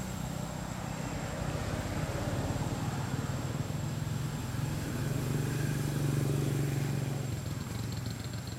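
A motor vehicle's engine running, a low steady hum that grows louder about five to seven seconds in and then eases off.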